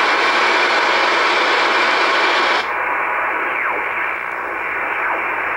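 Shortwave static and hiss from an Icom IC-R8500 receiver as its dial is tuned through the 3–4 MHz band. About two and a half seconds in, the hiss suddenly narrows and turns duller as the receiver switches from AM to upper sideband. Faint falling whistles then sweep past as the tuning moves on.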